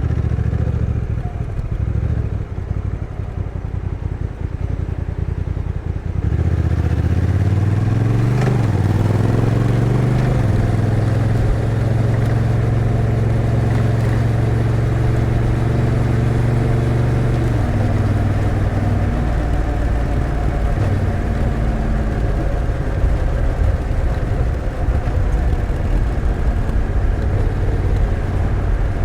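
Honda NT1100's 1,084 cc parallel-twin engine on the road with its stock exhaust. It runs low and uneven for the first few seconds, then the rider opens the throttle about six seconds in and the pitch climbs. Around ten seconds in the automatic dual-clutch transmission changes gear, the engine holds a steady pitch, and it eases off in steps near eighteen seconds before settling into an even cruise.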